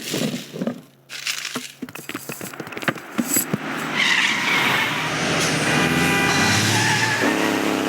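Road traffic sound effects: a quick run of knocks and clatter, then from about four seconds in car tires squealing as cars brake hard and skid, with engines running underneath.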